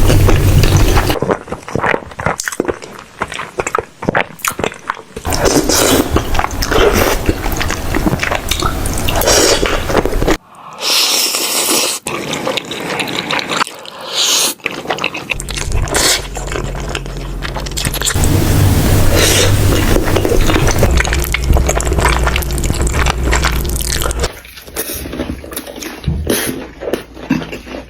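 Eating sounds: a person chewing and crunching food with irregular wet clicks and crackles, in several cut-together stretches that change abruptly.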